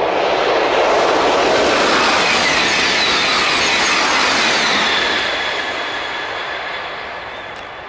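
TGV high-speed train passing at speed: a loud rush of wheel and air noise that holds for about five seconds and then fades away. A whine slides down in pitch as the train goes by.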